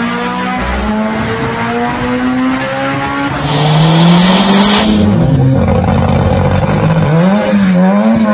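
Car engine accelerating hard, its pitch climbing steadily, then dropping and climbing again after a gear change, with a burst of hiss in the middle. Near the end the revs rise and fall in quick swings.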